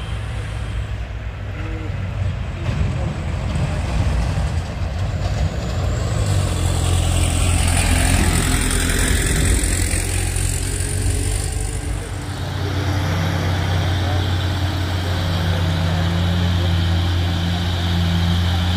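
A heavy truck's diesel engine running steadily close by, with a rushing hiss over it for several seconds in the middle. After that the engine settles to an even drone.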